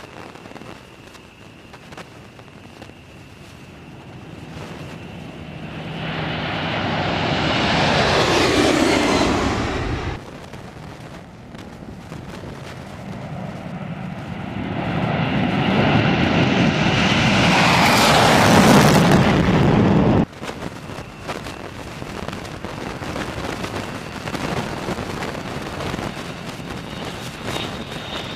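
Military jets taking off in turn: a twin-engine jet tanker's engines build to a loud roar over several seconds and cut off suddenly, then a B-1B Lancer's engines build to an even louder roar during its takeoff and cut off suddenly. Quieter jet engine noise follows.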